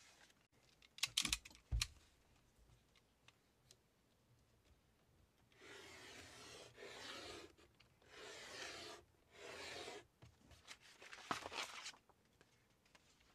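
A few sharp knocks, then a cloth rubbed in four long strokes over a printed sheet of paper on a wooden printing table, followed by paper crackling as the sheet is lifted.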